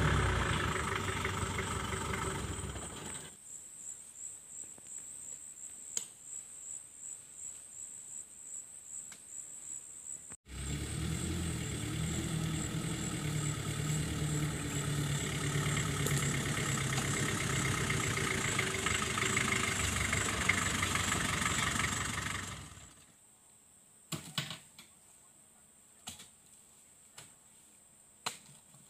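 A 4x4 pickup's engine running as it crawls along a grassy track, fading out after about three seconds and coming back after a cut at about ten seconds, with a high insect buzz pulsing about twice a second in the quieter stretch. Near the end, over near silence, a few separate knocks that fit oil palm fruit bunches being thrown into the pickup's bed.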